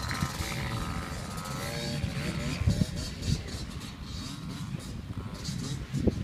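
Small dirt bikes, a Yamaha PW50 two-stroke among them, running and revving up and down in pitch in the distance as they ride the track.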